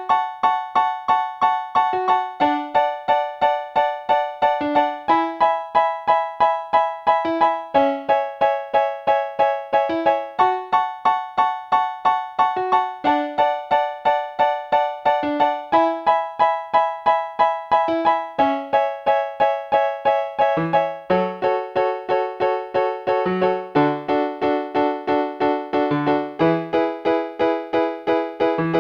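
Alesis Harmony 61 MKII keyboard playing its basic piano voice: a steady run of evenly struck chord notes, the harmony changing every couple of seconds, with lower bass notes joining about three quarters of the way through.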